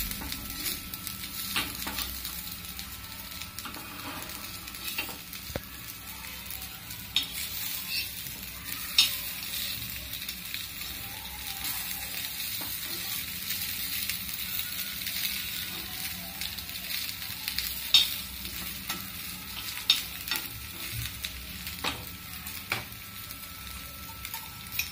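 Semolina-coated potato slices sizzling in oil on a flat tawa, with a steady hiss. A metal spatula clicks and scrapes against the pan every few seconds as the slices are turned over.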